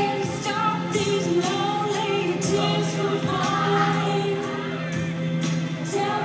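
Music with singing voices over a steady beat.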